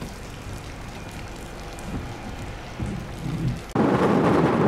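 Stormy wind and rain noise on the camera microphone. It runs at a lower level at first, then jumps suddenly near the end to a much louder, even rushing noise as a strong gust or burst of rain hits.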